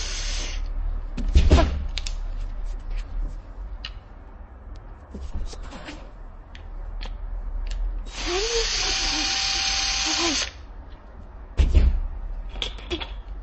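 Homemade air rifle: two sharp pops, one about one and a half seconds in and one near the end, with a stretch of hissing air for about two and a half seconds between them and scattered clicks of handling.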